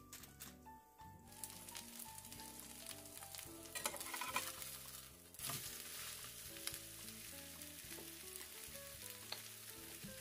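Korean seafood chive pancake batter sizzling in hot oil in a frying pan, louder for a moment about four seconds in. Soft background music plays underneath.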